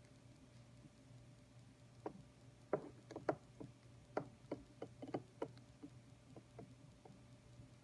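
A string of small, irregular clicks and ticks, about a dozen, from a TWSBI Eco piston-filler fountain pen being filled in an ink bottle as its piston knob is twisted to draw ink. The clicks start about two seconds in and die away before the end.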